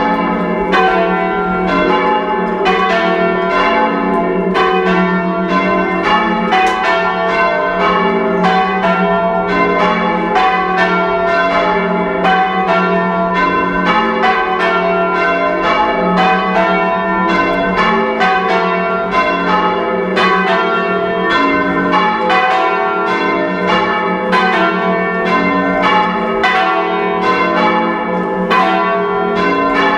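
Four bells of a heavy ring of five church bells, heard very loud from inside the ringing chamber, rung in steady turn as change ringing. The strikes follow one another evenly, each bell's ring overlapping the next; the treble is silent because its rope has snapped.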